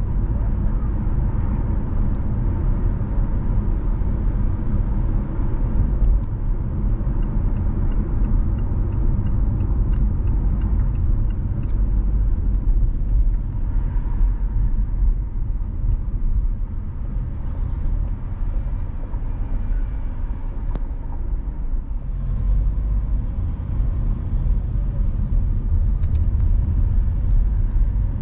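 Car driving on city streets: a steady low rumble of engine and tyre noise, easing a little in the middle. A faint, even ticking at about three a second runs for a few seconds in the first half.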